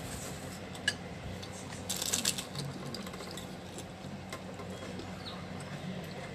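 Eating with a fork and spoon from a ceramic bowl of noodles: the cutlery clinks and scrapes against the bowl, with one sharp clink about a second in and a short noisy scrape around two seconds in.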